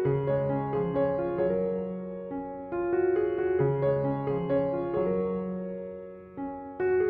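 Background piano music: a gentle melody of single notes struck a few times a second over held low bass notes.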